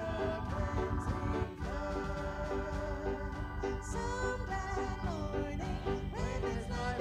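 Congregation singing a hymn together, led by a song leader, with keyboard accompaniment.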